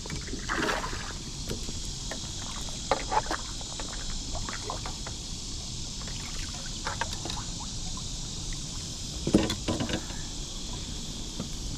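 A small hooked largemouth bass being landed from a plastic kayak: scattered splashes, drips and knocks against the hull, the loudest about three seconds in and again near the end. A steady high insect buzz runs underneath.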